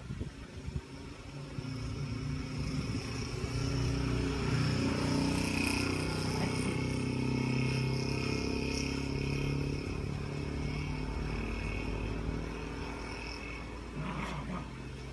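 A motor vehicle's engine running, swelling over the first few seconds and easing off toward the end.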